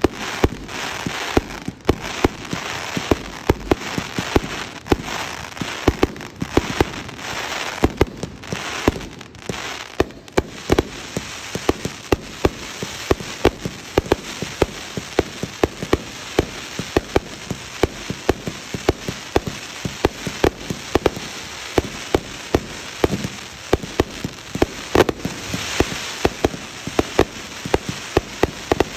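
Fireworks display: a rapid, unbroken string of sharp bangs, several a second, over a constant crackling hiss.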